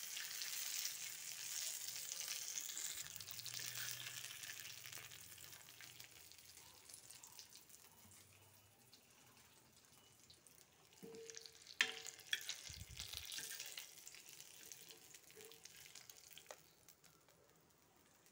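Spice-marinated fish fillets, fully fried, sizzling in groundnut oil on a dosa tawa; the sizzle fades away over the first several seconds. About twelve seconds in there is a single sharp knock.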